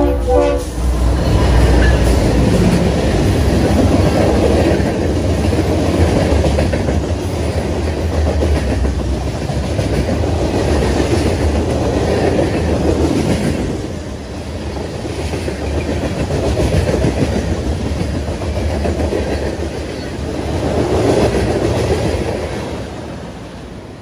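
The last blast of a Nathan RS3L air horn on a BNSF freight locomotive cuts off about half a second in, then the locomotives' diesel engines pass close by. A long string of covered hopper cars follows, rumbling with a clickety-clack of wheels over the rail joints, loudness swelling and easing as cars go by and dropping near the end as the train moves away.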